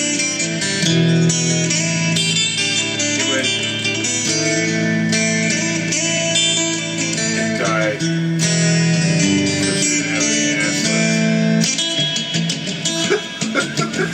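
Guitar music: plucked and strummed notes at a steady level, with quicker separate notes near the end.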